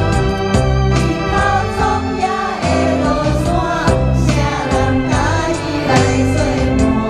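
A vocal performance: singing over a backing track with keyboard or organ, bass and a steady beat.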